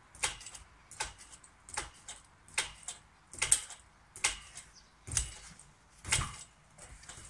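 Garden trampoline taking a child's bounces: a landing on the mat and springs about eight times, a little under a second apart.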